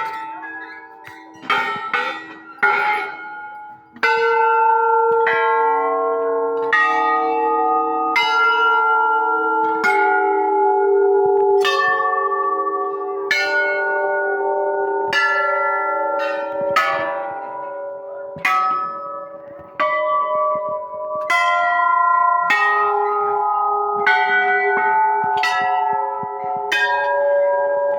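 Temple bells struck one after another, a fresh strike about every second and a half. Each one rings on until the next, and the pitch changes from strike to strike, so several bells of different tone sound in turn.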